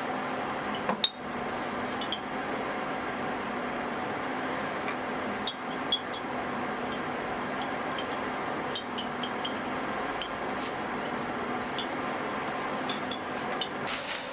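Scattered small clinks and ticks, with bright high pings, over a steady hum; a sharper click comes about a second in.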